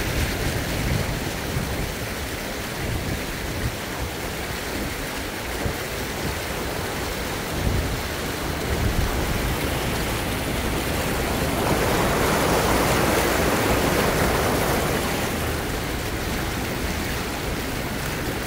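Steady rushing noise of moving water, with low rumbling buffets on the microphone. It swells louder for a few seconds a little past the middle.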